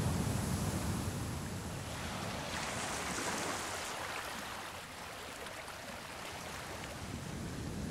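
Underwater water noise picked up by a diving camera: a steady muffled rushing hiss, with a deeper rumble in the first two seconds and a brighter hiss about a third of the way in.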